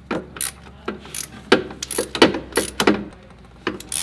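Ratchet wrench with a 14 mm socket clicking and clinking against metal while the rusted bolts holding a rear wheel-bearing hub are broken loose. The sharp, irregular metallic clicks come several a second and are loudest in the middle.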